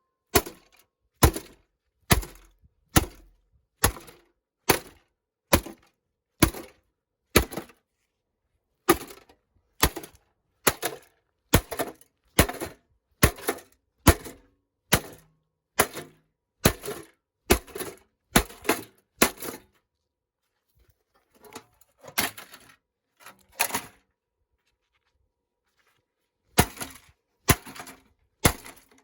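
A ventilation fan being smashed apart: a long run of sharp, cracking blows, a little over one a second, pausing briefly twice in the second half before starting again.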